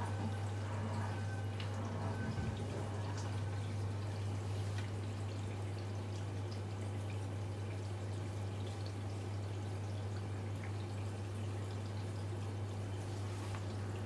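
Miele G5500 SCI built-in dishwasher running its wash cycle: a steady low hum with water splashing and dripping inside the tub, and a few faint ticks.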